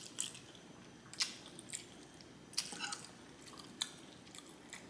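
A person chewing a mouthful of spaghetti with meat sauce: several short, sharp mouth clicks and smacks at uneven intervals, with quieter chewing between them.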